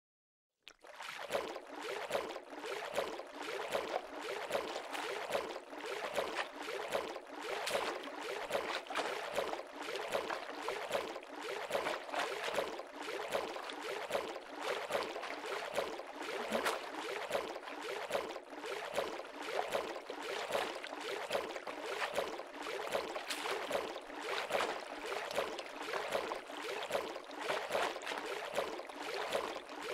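Water splashing and sloshing, an uneven continuous run of small splashes that starts abruptly about half a second in.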